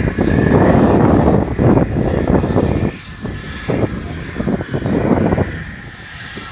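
Airliner engines rumbling loudly as a plane passes the airfield. The rumble swells at the start, eases about three seconds in, then swells again before dropping back.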